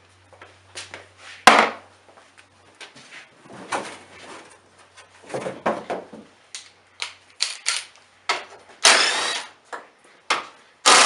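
Ratchet and socket working the 12 mm radiator-support bolts loose: short irregular bursts of ratcheting and metal clicks and clatter, with a sharp click about one and a half seconds in and busier, louder bursts near the end.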